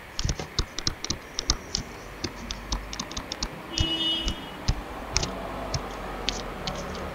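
Stylus tip tapping and ticking against a drawing tablet's surface during handwriting: irregular sharp clicks, several a second, with a brief scratchy scrape of the pen about four seconds in.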